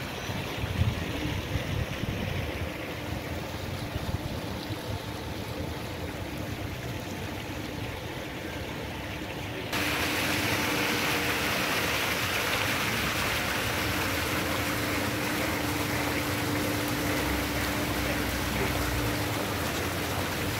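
Low rumble of distant city traffic, then, starting abruptly about halfway, the steady splashing hiss of a row of small fountain jets falling into a shallow pool.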